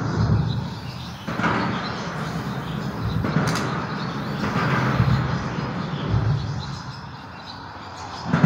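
Highway traffic passing on the overpass overhead: a steady rumble and rush that swells and fades as vehicles go by, with one sharp clack about three and a half seconds in.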